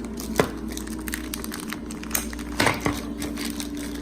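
Packaging being handled: plastic wrap crinkling, with a sharp tap about half a second in and a few more near the end, over a steady low hum.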